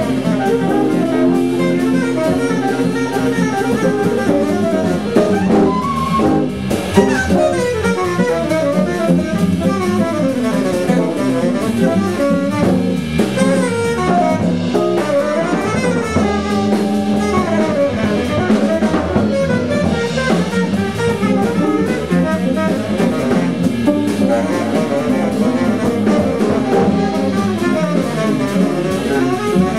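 Live jazz: a tenor saxophone solos in fast runs of notes over a drum kit and Hammond B3 organ accompaniment.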